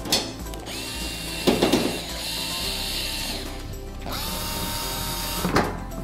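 Cordless screwdriver running twice, each time spinning up to a steady whine for a second or so, as it drives in the screws of a washing machine's front panel.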